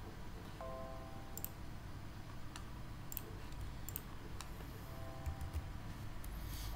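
Several faint, scattered computer mouse clicks, with a short soft multi-note tone just over half a second in and again, fainter, around five seconds.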